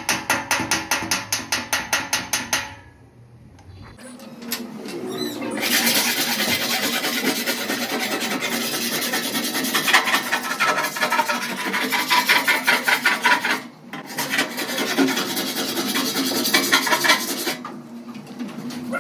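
Rasping strokes of hand abrading on a car body panel, in quick succession. They stop briefly about two thirds of the way through, then go on and fade near the end. At the start, a quick even run of clicks, about five a second, stops just under 3 seconds in.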